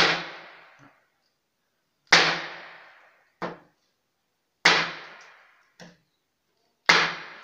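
A rock-hard bread roll banged down on a wooden table: four loud knocks about two seconds apart, each ringing out for about a second, with lighter taps in between. The bread is so hard it knocks like a solid object.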